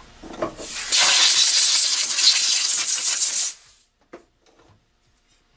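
A steady hiss of pressurized gas lasting about two and a half seconds, beginning about a second in and cutting off, then two light clicks.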